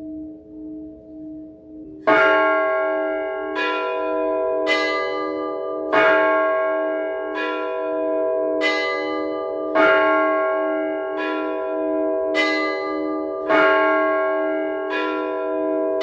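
Orthodox church bells rung in a simple everyday Rostov-style peal. A bell's hum rings on, wavering, then from about two seconds in the bells are struck in a steady pattern about every second and a quarter, each stroke ringing on, with the loudest stroke falling on every third.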